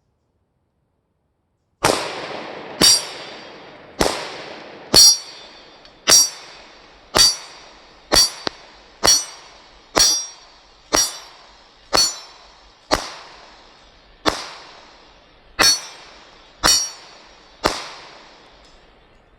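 Smith & Wesson SD9VE 9mm pistol firing handloaded rounds: about sixteen shots at a steady pace of roughly one a second, each trailing off in an echo. The shooting starts about two seconds in.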